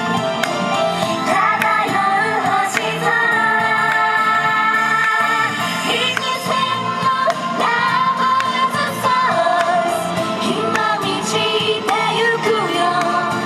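Female idol group singing a pop song live over instrumental music, with held, gliding vocal lines.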